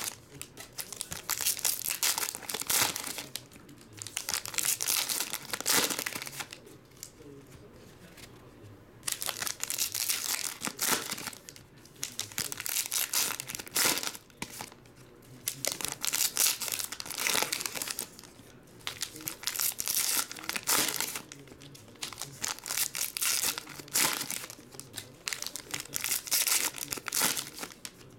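Foil trading-card pack wrappers crinkling as Panini Legacy packs are torn open and the cards pulled out. The rustle comes in repeated bursts with short quieter gaps between packs.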